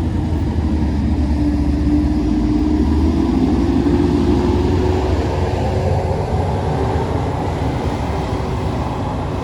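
Heavy vehicle's engine labouring up a steep climb: a steady low rumble with a whine that slowly rises in pitch, loudest midway and easing toward the end.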